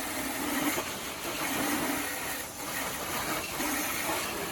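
Water running and splashing over a car headlight, rinsing off the headlight surface activator.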